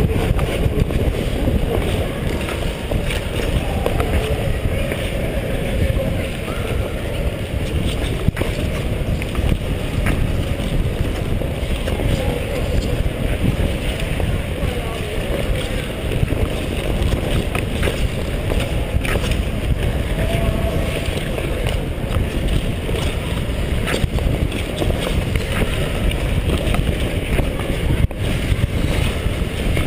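Steady rush of wind over a helmet-mounted camera's microphone as a short-track speed skater glides at speed, a dense low rumble with a few faint clicks.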